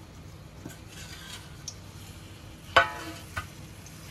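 Dates being stirred and roasted in desi ghee in a kadhai, with a low sizzle. About three seconds in the stirring utensil strikes the metal pan in a sharp, briefly ringing clank, followed by a lighter knock.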